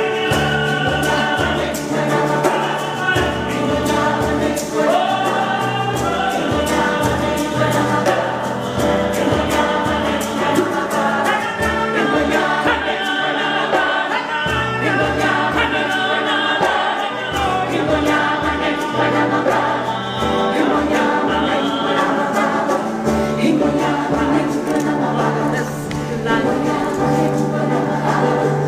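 Gospel music: a choir singing over a pulsing bass line.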